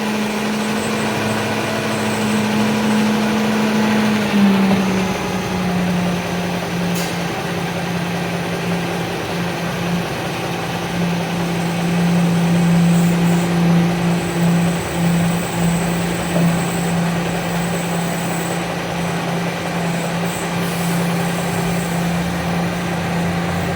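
Tipper truck's engine running steadily; its pitch drops a little about four seconds in and then holds.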